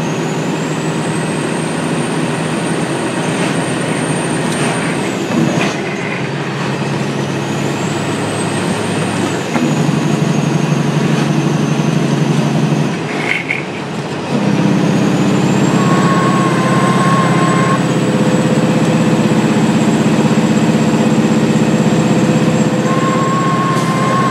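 Semi-truck diesel engine running under way, heard inside the cab with steady road noise. The engine note drops out briefly just past halfway, then comes back stronger.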